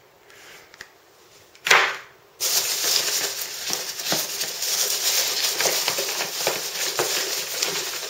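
Packaging being handled while spark plugs are unpacked: a short ripping or crumpling burst about two seconds in, then steady crinkling and crackling of packing material with many small clicks.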